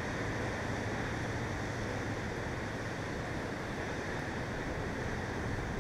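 Rough-sea surf breaking against coastal rocks, with wind: a steady rushing noise.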